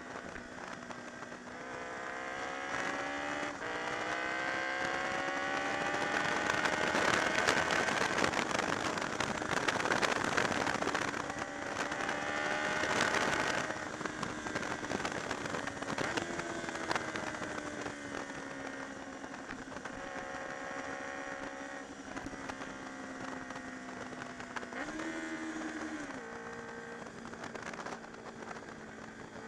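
Honda VFR motorcycle's V4 engine under way. The revs climb over the first few seconds, then wind rushes hard over the microphone at speed. The engine then winds down off the throttle, with a brief rev blip near the end.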